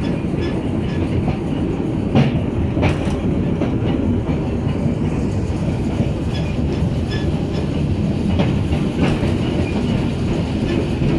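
Narrow-gauge park railway train running along the track, heard from its open-sided carriage: a steady wheel rumble with sharp clicks in pairs as the wheels cross rail joints, one pair a couple of seconds in and another later on.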